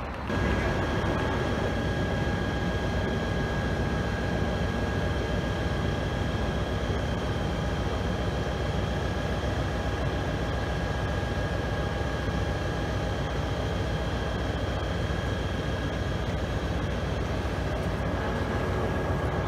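Steady electrical whine with a low rumble from electric trains standing at station platforms. A few high tones hold level throughout.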